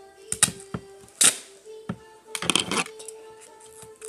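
Duct tape being pulled off the roll and torn to tape up a paper squishy, in a few short rips with a longer one about two and a half seconds in. Faint music with held notes plays underneath.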